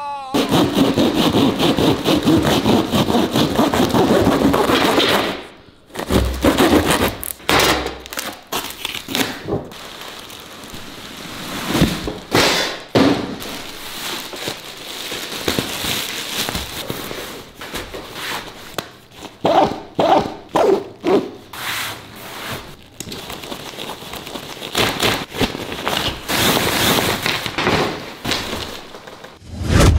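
Hand saw cutting through a tape-wrapped cardboard box in quick, even strokes for about five seconds. After that come irregular rustling, rubbing and knocks as packaging and fabric tent bags are pulled out and handled.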